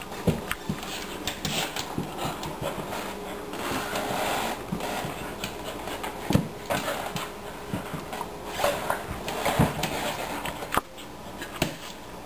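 Soft Coated Wheaten Terrier puppy scrambling on a hardwood floor under a wet towel: the towel rustling and dragging, with claws and paws clicking and knocking irregularly on the wood.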